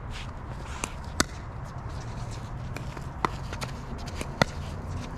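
Pickleball rally: a plastic pickleball is hit back and forth with paddles and bounces on the hard court, making a series of sharp pops about a second apart. The loudest pop comes near the end.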